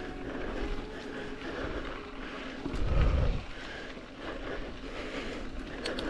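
Mountain bike riding along dirt singletrack: wind rushing over the action camera's microphone, with tyre and trail noise. There is a heavy low buffet about halfway through.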